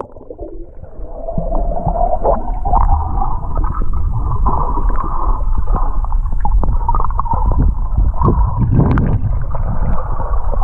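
Muffled underwater rushing and gurgling of water around a submerged camera as a swimmer moves through a river, with many small clicks and knocks. It builds up over the first couple of seconds and then stays steady, with a fuller surge near the end.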